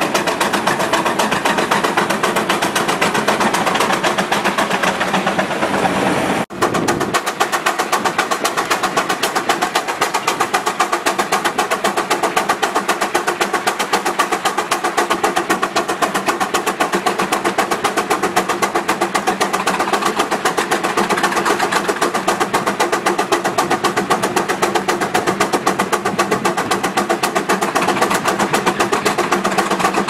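Steam traction engine running with a rapid, even exhaust chuff; after a break about six and a half seconds in, a second engine's beat goes on while it stands driving a long flat belt.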